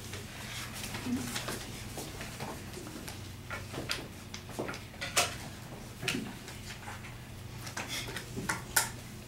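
Scattered light knocks, clicks and rustling of papers and a spiral notebook being gathered up and a person moving off, over a steady low hum. The sharpest knocks come about five seconds in and again near the end.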